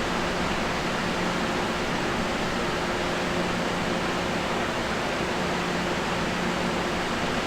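Standing LIRR M3 electric multiple-unit train's blowers and auxiliary equipment running: a steady hiss with a low hum that fades in and out.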